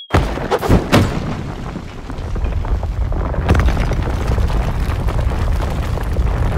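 Sound-effect booms for an animated monster fight: a sudden loud blast with several sharp hits in the first second, then a continuous deep rumble with another hit about three and a half seconds in.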